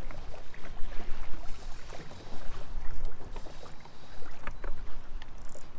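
Small waves lapping and slapping against the hull of a bass boat, a continual run of small irregular splashes over a low rumble.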